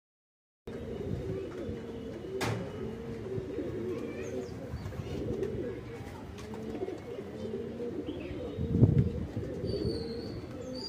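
Domestic pigeons cooing continuously, several low wavering coos overlapping, starting after a brief moment of dead silence. A sharp click comes about two and a half seconds in, and a louder low thump about nine seconds in.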